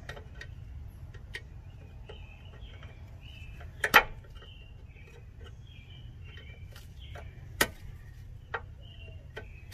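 Sharp metallic clicks of needle-nose pliers working a tightly set cotter pin out of a ball-joint castle nut, the loudest about four seconds in and two more near the end. Birds chirp in short repeated calls behind.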